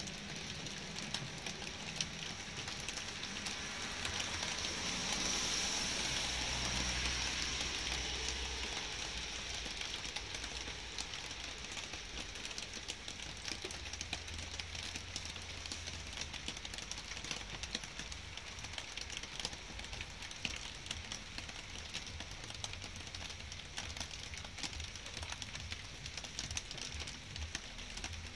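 Light rain falling steadily, with close drops ticking irregularly. A rushing hiss swells about four seconds in and fades away by about ten seconds.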